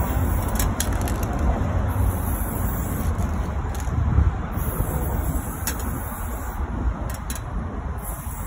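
Steady low rumble of city street traffic, with the hiss of an aerosol spray can coming and going as a tag is sprayed onto a cinder-block wall.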